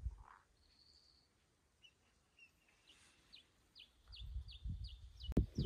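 A small bird calling: a thin high whistle, then a quick run of about nine short, high, falling notes, about four a second, in the second half. A low rumbling noise rises under it in the last second and a half.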